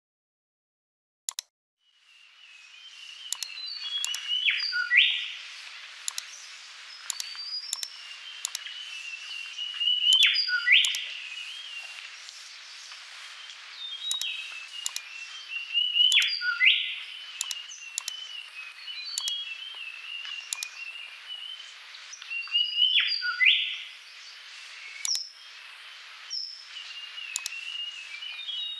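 Birdsong over a steady outdoor hiss, starting about two seconds in, with a loud chirping phrase that comes back about every six seconds. Sharp single clicks of a computer mouse come in throughout.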